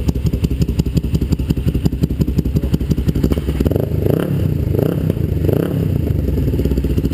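Kawasaki EX500 parallel-twin engine running through a pair of glasspack mufflers, idling with an even pulse, then revved up and back down three times about halfway through.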